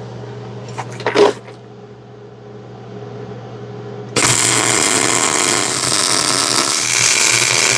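Miller Millermatic 180 MIG welder tack-welding a pipe onto thick steel with mixed shielding gas: the arc strikes about four seconds in and runs as a loud, steady hiss until near the end. Before it there is a low steady hum and a short, loud knock about a second in.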